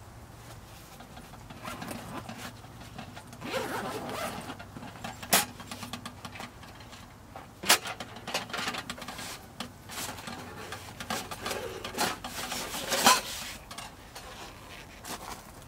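A zipper being drawn open on a padded stove carry bag, with fabric rustling, then a few sharp metal clinks as a Winnerwell wood stove and its folding wire rack are handled and lifted out.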